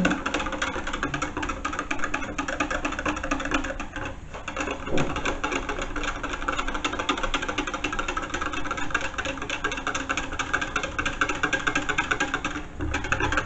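Small wire whisk beating gravy mix in a plastic measuring jug: a fast, steady clatter of the wires against the plastic sides, with a short break about four seconds in, stopping just before the end.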